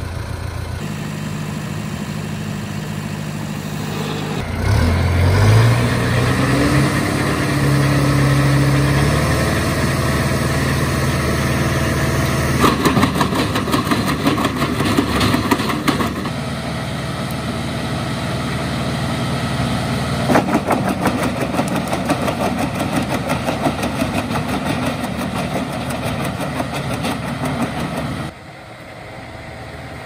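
John Deere tractor's diesel engine runs steadily, then about four seconds in revs up to drive the PTO-powered wood chipper and holds that speed. Twice the chipper's blades cut into a log, a dense rapid knocking over the engine, the second stretch longer; the sound drops suddenly near the end.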